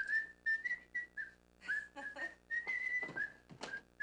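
Someone whistling a tune: a run of short, clear notes, a few sliding up or down between them.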